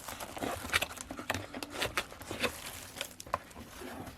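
Unboxing packaging being handled: irregular rustling and crinkling of paper and plastic with light taps and knocks.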